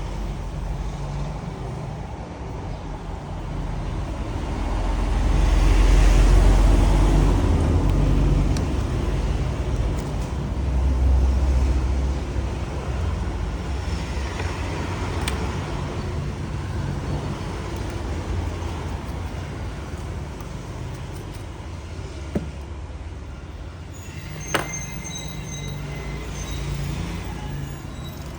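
Low background rumble like road traffic, swelling louder about five to eight seconds in and again around eleven seconds. Two sharp clicks come late on.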